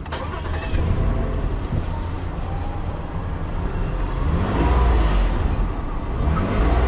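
Toyota Alphard's engine running with a heavy low rumble. Its pitch rises and falls about four seconds in, and again near the end.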